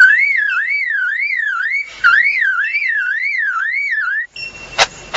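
Superb lyrebird mimicking a car alarm: a loud warbling siren that sweeps up and down about three times a second, in two long runs. Two sharp clicks follow near the end.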